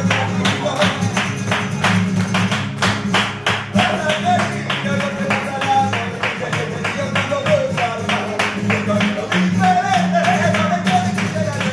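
Flamenco music with a singing voice over a fast rhythm of sharp percussive strikes, about four a second.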